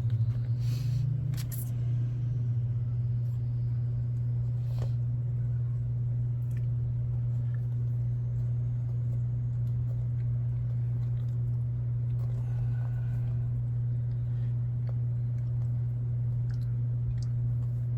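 Steady low electrical or motor hum, with a few light clicks and taps from handling small wheel parts in the first few seconds.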